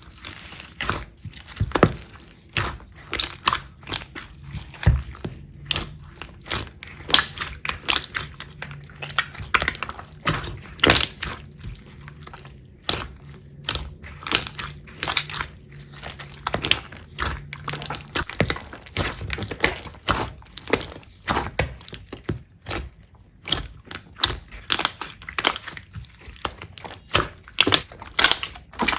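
Slime being squeezed and pressed by hand, giving a dense, irregular run of crackling, popping clicks, several a second.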